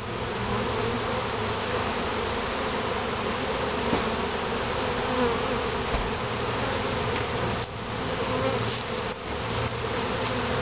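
Swarm of honey bees buzzing around an opened top-bar hive: a dense, steady drone of many bees.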